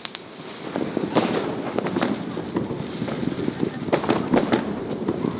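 Fireworks and firecrackers going off: a dense, irregular run of sharp cracks and pops.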